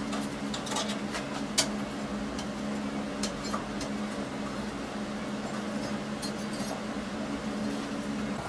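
Floor-standing drill press running with a steady motor hum. A few light metallic clinks sound in the first few seconds as the steel bracket and drill chips are handled on its table.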